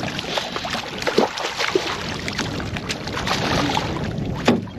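Water splashing and sloshing beside a boat as a hooked bass is fought and brought in, with scattered clicks and a sharp knock near the end.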